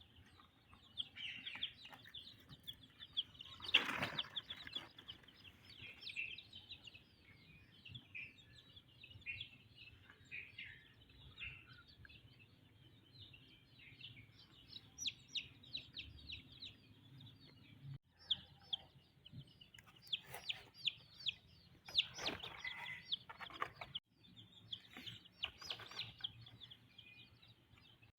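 Black Shamo and Aseel chicks peeping: many short, high chirps in quick succession, with a brief rustling sound about four seconds in and a few more near the end.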